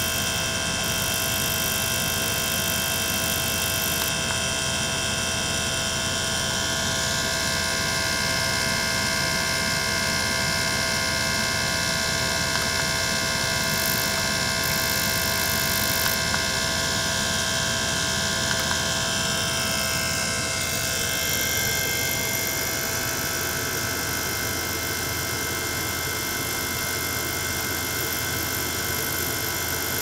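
Small electric pump running steadily, circulating water and air bubbles through a tank: a constant motor drone with several steady tones over it. The higher tones shift about two-thirds of the way through.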